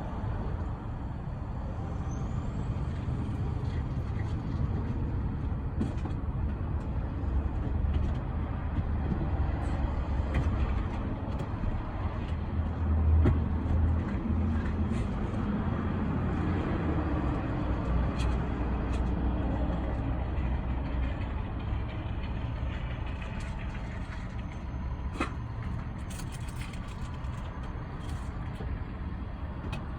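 Car's steady low rumble, a little louder about halfway through, with a few faint scattered clicks: the clicking the owner traces to the rear of the car.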